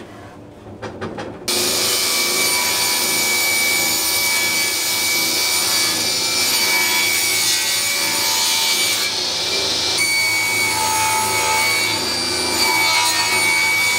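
Table saw ripping a wooden board lengthwise to width: the spinning blade cuts through the wood with a steady whine. It starts suddenly about a second and a half in, after a few light knocks.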